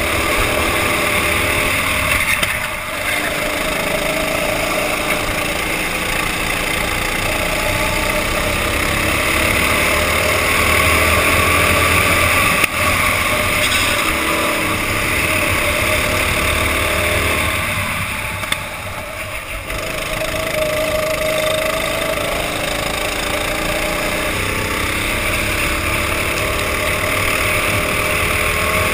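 Go-kart engine heard from the driver's helmet, running hard with its pitch rising and falling as the kart goes round the track, over a steady rushing noise. It eases off briefly about two and a half seconds in, and again for a couple of seconds around nineteen seconds in.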